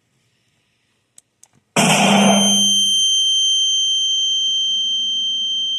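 A sudden loud electronic sound comes in about two seconds in. It opens with a short noisy burst and a low hum, then settles into a steady, high-pitched beep like an alarm buzzer. The beep holds for about four seconds and cuts off abruptly.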